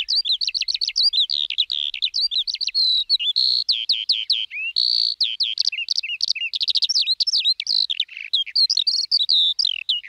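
Skylark singing: an unbroken, rapid stream of high chirps, trills and short whistles with no pause.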